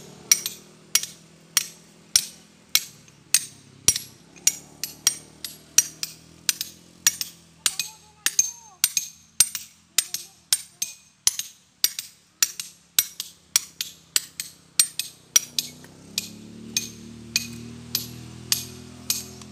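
Hand hammer tapping a steel chisel into a boulder to split it by hand: sharp metallic strikes, about two to three a second with a bright ring, thinning out briefly about eight to ten seconds in.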